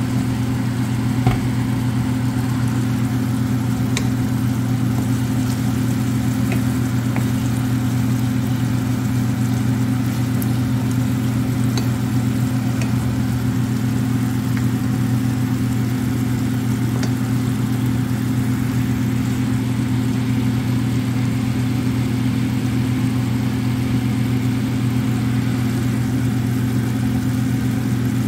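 Steady low mechanical hum, unchanging throughout, with a few faint scattered pops from chicken livers simmering in sauce in a stainless steel pan.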